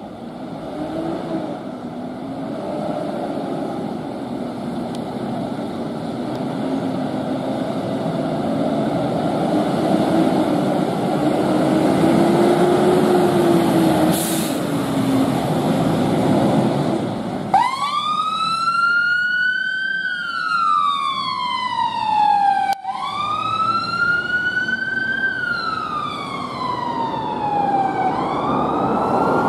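Volvo FL fire engine's diesel engine pulling out and accelerating. About 17 seconds in, its siren starts a slow wail, rising and falling and restarting about every five seconds.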